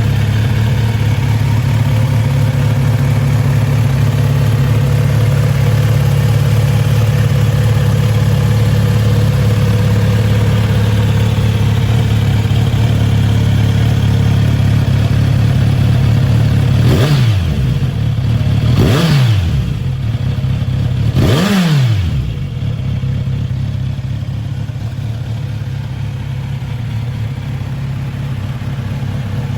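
Kawasaki Z900RS inline-four engine idling steadily, then revved three times with quick throttle blips, each rising and dropping straight back. The engine then stops, leaving only a low background hum.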